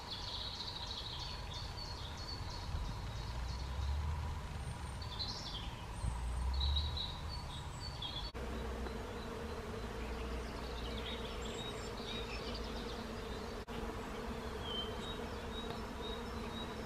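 Outdoor spring ambience: small birds chirping high and briefly, with a steady insect-like buzz or hum that comes in about eight seconds in, over low wind rumble.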